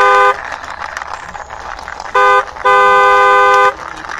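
Car horn beeping in a short-then-long pattern: a long beep ending just after the start, then a short beep about two seconds in followed at once by a long one of about a second, with a soft hiss between the beeps.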